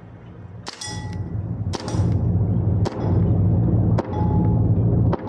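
Gas blowback airsoft pistol (AW/WE TTI 2011 Combat Master) fired five times at an even pace, about a second apart. Each shot is a sharp crack followed by a brief metallic ring, over a steady low hum.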